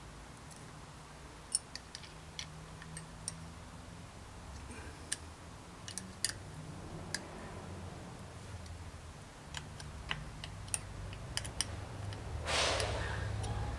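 Scattered light metallic clicks as an Allen key works the mounting bolts of a Promax disc brake caliper on a bicycle fork, with a brief rustle near the end.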